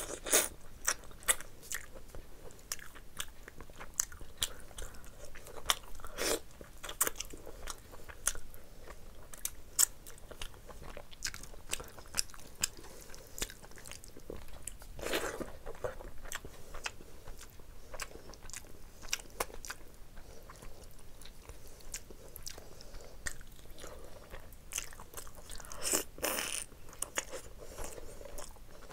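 Close-up mouth sounds of a person eating rice and chicken curry with her hands: wet chewing and lip smacking, with many sharp clicks and a few longer, louder wet sounds.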